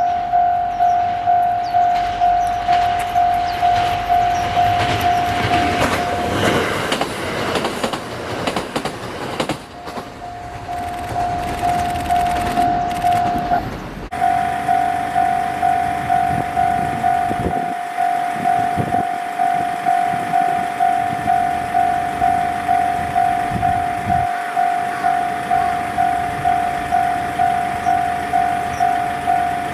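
Electronic level-crossing warning alarm ringing at about one and a half strikes a second, while a diesel train rumbles over the crossing in the first half. The train's noise is loudest a few seconds in and briefly drowns the alarm. After the train has gone, the alarm keeps ringing steadily.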